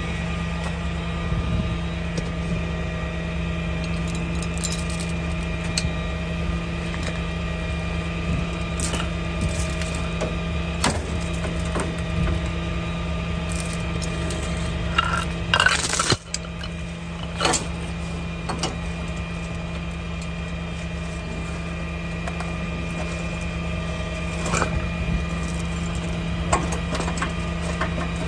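Tow truck engine idling steadily, with scattered metal clinks and knocks from chains and hooks being rigged under the truck's front end, and a louder metallic clatter about halfway through.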